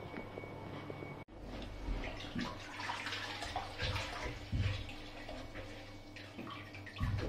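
Water sloshing and wet scrubbing as woodwork is washed down from a bucket of water, with a few dull knocks.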